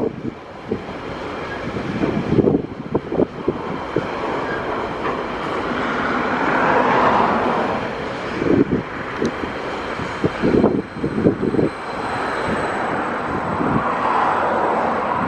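Container wagons of a freight train rolling past on steel rails: a steady rumble and hiss, broken by two clusters of sharp knocks as wheelsets run over the track.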